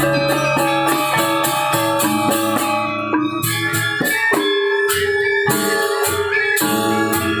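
Balinese gong kebyar gamelan playing: bronze metallophones ringing in quick struck patterns, with repeated cymbal clashes and a low gong tone that comes and goes.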